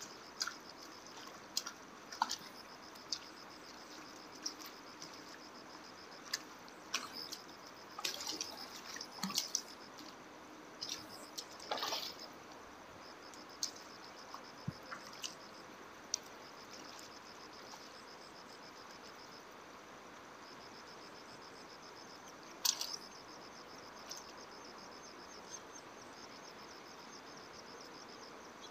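Insects chirring steadily in a high, pulsing drone, with scattered small splashes and drips of water, busiest about a third of the way in and once more, sharply, toward the end.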